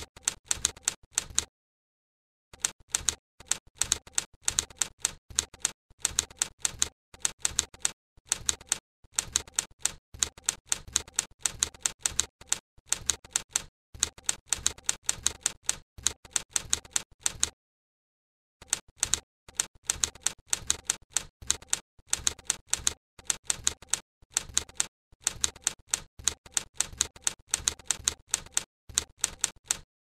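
Manual typewriter typing: quick runs of sharp typebar clacks, several a second, with a pause of about a second near the start and another just past the middle.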